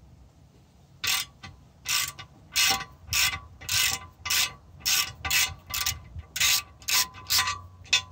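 Socket ratchet clicking in about a dozen short bursts, roughly two a second, on its return strokes while it loosens the 12 mm nut that holds a TPMS sensor's valve stem to an alloy wheel rim.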